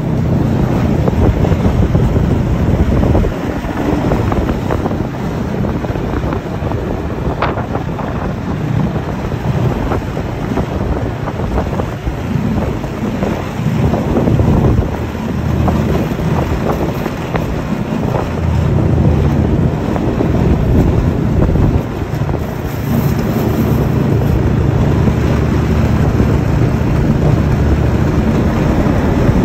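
Snowmobile engine running steadily while under way, heard from the rider's seat, with wind buffeting the microphone.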